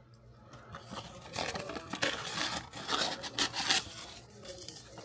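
Paper and cardboard rustling and scraping as paper-wrapped tea bags are pulled out of a torn-open cardboard tea box, in irregular bursts that are loudest about three and a half seconds in.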